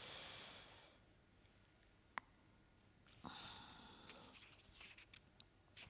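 Near silence, with a reader's faint breathing close to the microphone: a soft breath at the start and another a little after three seconds, and one small click about two seconds in.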